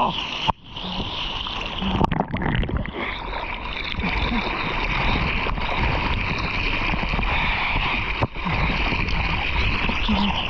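Water rushing and splashing against an action camera held at water level on a surfboard, as the board paddles into and rides small waves. The sound drops out suddenly and briefly twice, about half a second in and near the end.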